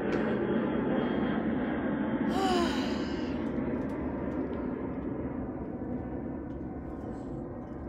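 An aircraft passing over, its rumble slowly fading as it moves away. A short breathy sigh about two and a half seconds in.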